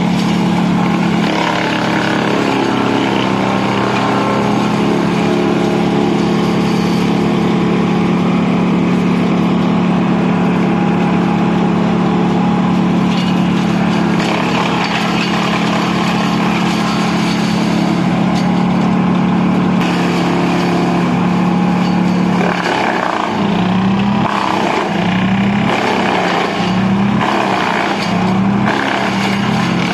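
Petrol-engined branch shredder (wood chipper) running steadily while branches are shredded. About twenty-two seconds in, its engine note starts dipping and rising about once a second.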